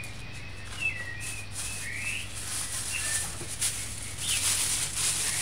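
Bird chirping: a few short whistled notes, each gliding up or down, about a second apart, over a low steady hum.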